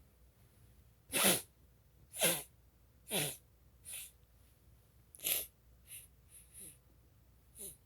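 A run of short sneezes set off by snuffed chhinkni sneezing powder: about eight, roughly a second apart, each with a falling pitch. The first two are loudest and the later ones grow fainter.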